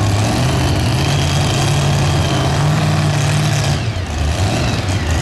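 Supercharged engine of a super modified two-wheel-drive pulling tractor idling steadily, with a brief dip in level just before 4 seconds in.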